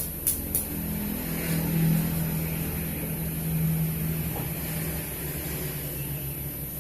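A motor vehicle's engine humming low and steady, fading after about five seconds; two sharp clicks come just before it.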